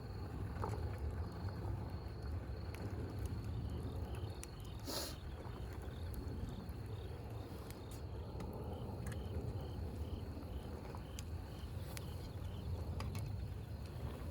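An insect chirping in an even pulse, about two short high chirps a second, over a steady low rumble, with scattered sharp clicks and one short noisy burst about five seconds in.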